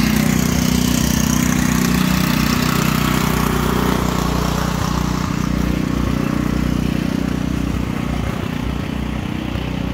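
Small engine running steadily at idle, easing off slightly over the last few seconds.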